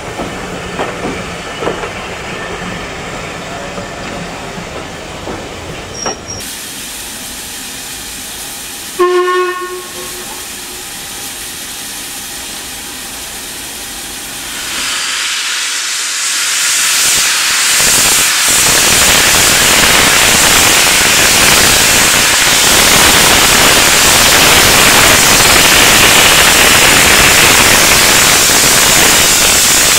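Steam locomotive at a heritage railway: a few clanks and clicks, then a short steam-whistle blast about nine seconds in. From about fifteen seconds steam blows off in a loud, steady hiss.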